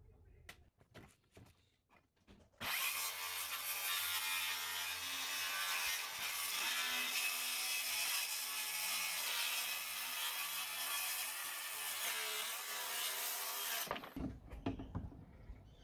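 Power saw cutting through a sheet of plywood: one steady cut lasting about eleven seconds, starting a few seconds in and stopping abruptly near the end. A few light knocks come before and after it.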